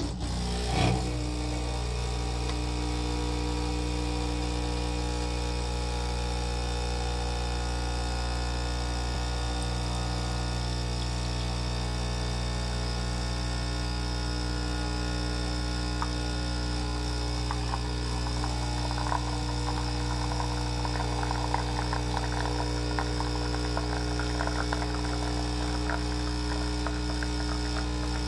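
Breville Dual Boiler espresso machine's vibratory pump switching on and humming steadily while it pulls a shot through a bottomless portafilter. A faint, irregular crackle joins in over the second half while the espresso streams into the cup.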